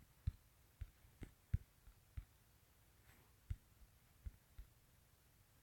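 Fingertips tapping on a smartphone touchscreen while typing on the on-screen keyboard: about a dozen soft, irregular taps, with a pause of about a second in the middle.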